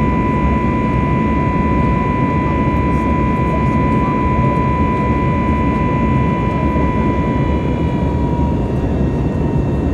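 Airbus A320neo cabin noise in flight: steady turbofan engine and airflow rumble heard from a window seat near the engine, with a steady high whine over it that drops slightly in pitch near the end.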